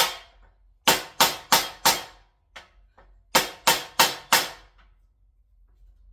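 A 1095 steel mini hunter knife's edge chopped hard into a wooden axe handle to test its edge retention: one strike, then two runs of four sharp strikes about three a second with a short pause between.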